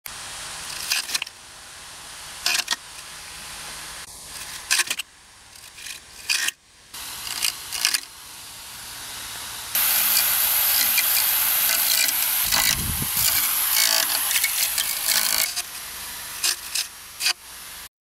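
Homemade grass cutter, a small motor spinning a disc on the end of a PVC pipe, whirring into pomegranate bush foliage, with many sharp clicks and snaps as leaves and twigs strike the disc. About halfway through, a louder steady hiss of cutting lasts about six seconds.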